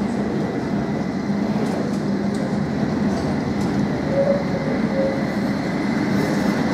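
Articulated tram rolling slowly on a curved track as it approaches and passes close by: steady running rumble with a constant low hum, and two short wheel squeaks on the curve about four and five seconds in.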